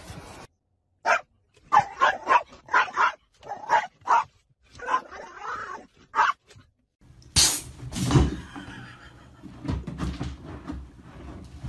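A small white-and-tan terrier barking inside a car, a quick run of about ten short, sharp barks over five seconds. After that come two loud knocks, then softer irregular knocking and rustling.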